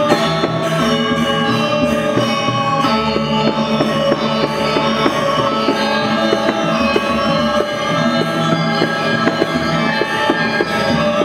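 Balinese gamelan music: bronze metallophones ringing in layered held tones over a quick, even run of struck notes.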